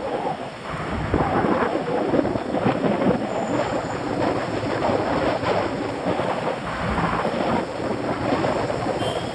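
Wind buffeting the microphone: a loud, rushing, rumbling noise that swells and drops in uneven gusts, with no pitched sound in it.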